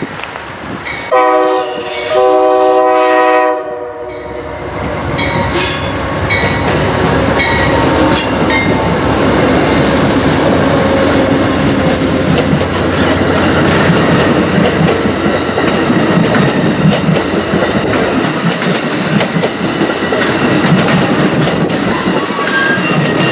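Amtrak locomotive horn sounds two blasts, a short one and then a longer one, as a passenger train approaches. The train then passes close by: steady rumble of wheels and clickety-clack of double-deck Superliner cars over the rail joints.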